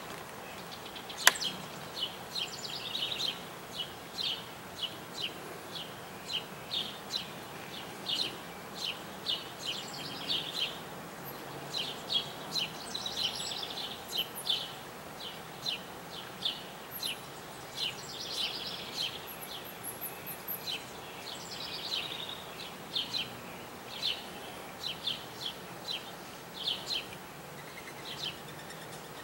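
Backyard birds chirping over and over, short high chirps about two a second with a few buzzy trills mixed in, over steady faint background noise. A single sharp click about a second in.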